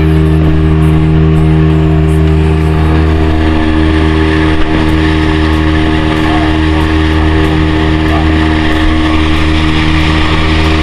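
Boat motor running at a steady speed, with a constant spray of wind and water noise.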